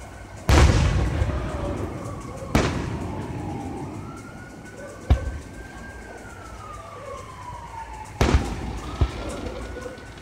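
Aerial firework shells bursting: a loud boom about half a second in with a long rumbling tail, then single sharp bangs a few seconds apart, with two close together near the end. Under them a long wailing tone rises and falls slowly.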